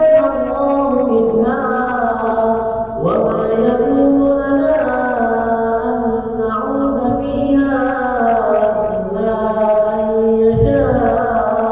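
Melodic Qur'anic recitation of ruqyah verses by a single reciter: long, drawn-out notes that slide slowly between pitches, with a short break for breath about three seconds in.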